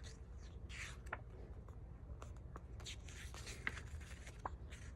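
Pages of a paper book being turned quickly, with soft rustles and swishes and a few light taps as the pages are handled.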